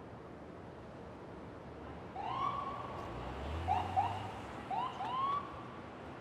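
Police car siren giving short rising whoops: one longer whoop about two seconds in, then two quick pairs of chirps, over a low traffic rumble.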